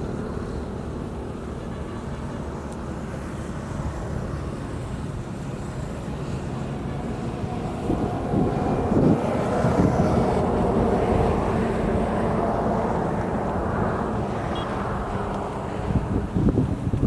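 A motor engine running steadily, its sound swelling louder through the middle and easing off again, like a vehicle passing by.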